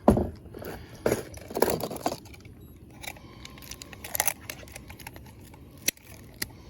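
Handling noises as a caught bass and fishing gear are moved about to weigh it: a loud knock at the start, then scattered rattles and clicks, with a sharp single click about six seconds in.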